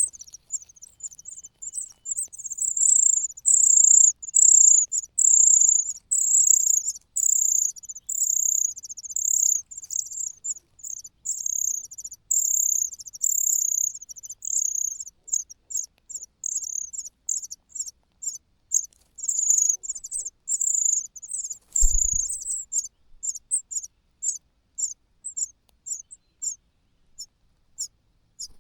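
Common cuckoo chick begging for food with high, thin, insect-like calls repeated rapidly, about two a second, becoming shorter and choppier later on: a hungry cuckoo nestling crying to be fed. One low thump about three-quarters of the way through.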